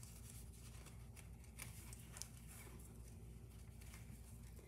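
Near silence: a steady low room hum with a few faint rustles and ticks of hands handling card, ribbon and thread while tying a knot.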